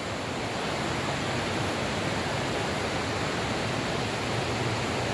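Steady rush of water from a small waterfall inside a limestone cave.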